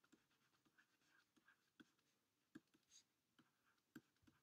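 Very faint taps and light scratches of a stylus writing on a tablet, a few soft ticks a second over near silence.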